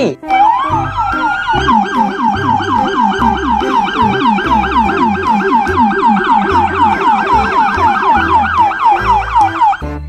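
Police siren in yelp mode: a wail climbs slowly, then switches to fast up-and-down sweeps, about four a second, which stop just before the end.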